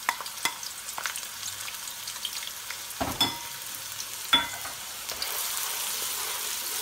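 Chopped red onion sizzling in hot oil in a nonstick wok, with scattered clicks and knocks of the spatula and utensils and one sharp knock about four and a half seconds in. From about five seconds in the sizzle grows fuller and louder as the onion is stirred.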